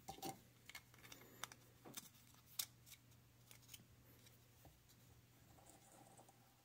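Faint clicks and light metallic ticks of small bent copper contact strips being handled and pushed into a plastic battery holder, most of them in the first three seconds, the sharpest about two and a half seconds in.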